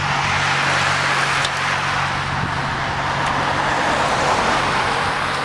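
Steady rushing road noise of a motor vehicle going by, over a low steady hum.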